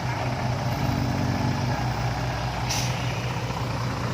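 Vehicle engine running steadily with a low drone, and a short hiss about two and a half seconds in.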